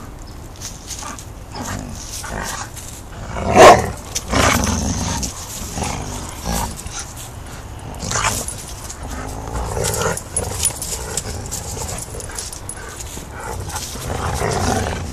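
Two dogs, an English Mastiff puppy and a pit bull, growling in play as they tug on a leather tug toy, with one loud burst about four seconds in.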